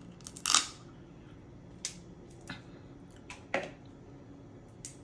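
Close-miked eating of steamed blue crab: crab meat being chewed and crab shell picked at, heard as scattered sharp clicks and cracks, the loudest about half a second in.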